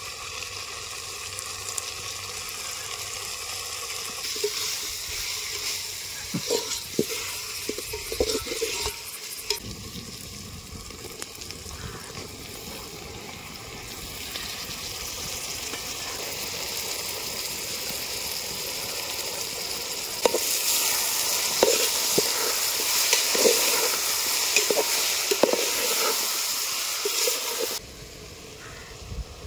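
Food frying and sizzling in a hot pot while it is stirred, with a utensil knocking and scraping against the pot in spells. The sizzling drops off sharply near the end.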